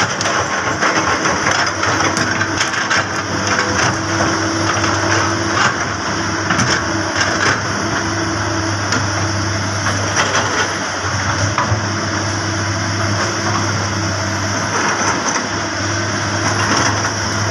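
Komatsu PC200 excavator's diesel engine running steadily at working revs, with scattered clicks and knocks as the machine swings and moves over the dirt.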